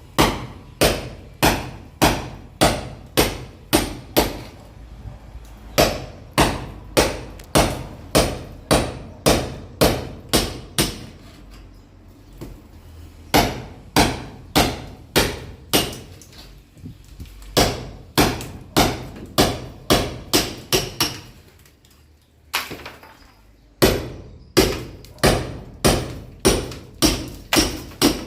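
Hammer blows striking repeatedly, about two a second, in runs of sharp knocks separated by short pauses of a second or two.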